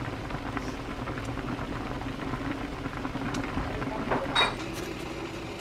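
A pot of pollock roe stew bubbling at a steady boil, with a short clink about four and a half seconds in.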